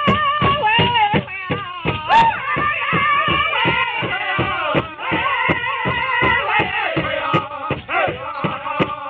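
Pow wow drum group singing with the big drum: several voices in high, wavering song over a steady, even drumbeat struck together by the group.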